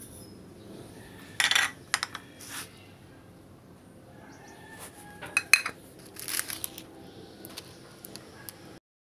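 Light clinks and knocks of a small ceramic bowl being handled while seasonings are added, with sharp clinks about a second and a half in and a cluster of them around five and a half seconds.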